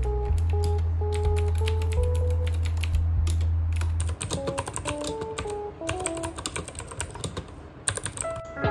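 Typing on a white mechanical keyboard: a quick, continuous run of key clacks. Lo-fi background music plays under it, and its bass drops out about four seconds in.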